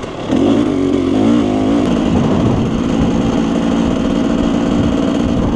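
Dirt bike engine running under throttle, its pitch rising and falling in the first second or two, then holding steady.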